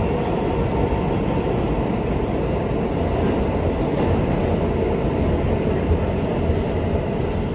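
Inside an R211A subway car running between stations: a steady, even rumble of wheels on rail and the car's running gear, with a few faint high ticks.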